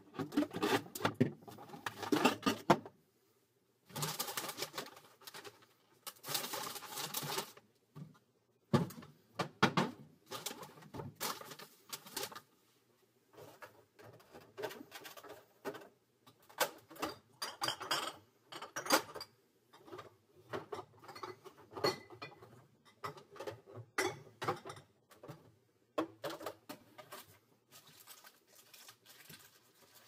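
Someone rummaging through a refrigerator: irregular clinks, knocks and rustles as containers, bottles and packaging are moved about on the shelves, with two longer rustling stretches a few seconds in.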